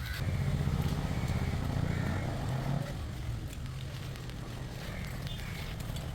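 An engine running at low speed, a steady low rumble that is louder for the first three seconds and then eases off.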